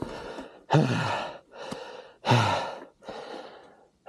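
A man's heavy, pained breathing: a series of loud sighing exhales, two of them voiced groans that fall in pitch. He is hurting after hitting his groin on the dirt bike.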